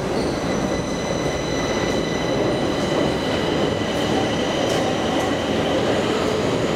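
Metro train running in the station: a steady rumble with several thin, high, steady squealing tones from the wheels on the rails, coming in just after the start and fading near the end.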